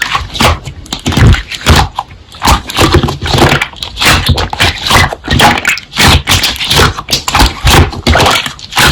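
Slime being squeezed, pressed and stretched by hand: an irregular run of wet clicks, squelches and pops, several a second.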